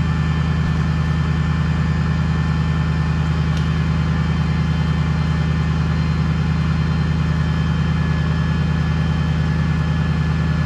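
Recovery truck's engine idling steadily with an even low throb.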